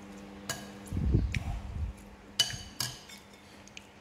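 Metal spoons clinking against ceramic soup bowls and plates: a few sharp clinks that ring briefly, the loudest about two and a half seconds in. About a second in there is a low rumbling thud.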